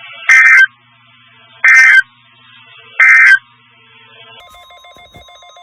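Three short bursts of the Emergency Alert System's digital SAME data signal, a harsh warbling two-tone screech, about 1.3 seconds apart: the end-of-message code that closes a tornado warning. Near the end a faint steady tone with a low hum starts.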